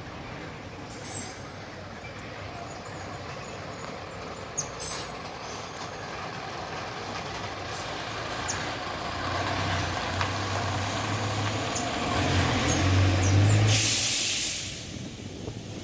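Street traffic with a heavy vehicle passing: its engine hum builds for several seconds, then a short, loud hiss comes about fourteen seconds in and the noise drops away. A couple of brief knocks come earlier.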